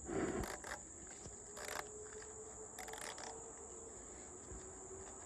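A plastic bag being zip-tied over an open hydraulic hose end, heard as a few short rustles and clicks near the start, about 1.7 seconds in and about 3 seconds in. A steady high-pitched insect chorus runs underneath.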